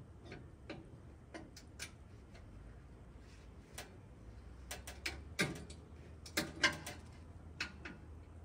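Scattered light clicks and taps at uneven intervals, bunched in the middle, from hand tools and metal parts being worked on a car's exhaust.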